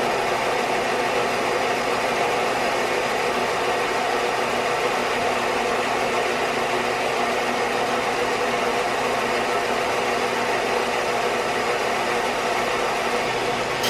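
Central Machinery 4-inch by 36-inch belt and 6-inch disc sander running steadily, its electric motor and belt giving an even, unchanging hum.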